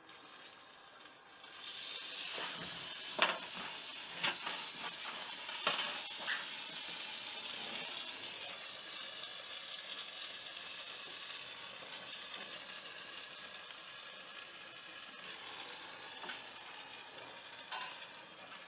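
A steady hiss starts about one and a half seconds in and runs on, with a few sharp metallic clicks over the next few seconds and another near the end.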